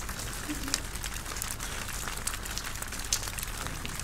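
Sparse, light crackles and ticks over a steady hiss.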